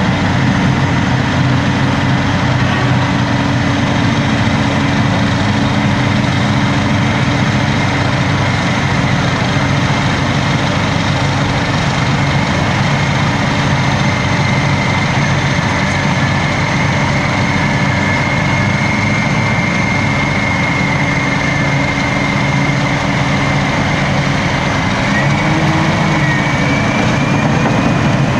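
Caterpillar D10R crawler dozer and Caterpillar 631E wheel tractor-scraper diesel engines running hard together as the dozer push-loads the scraper. A steady heavy engine drone with a thin high whine over it.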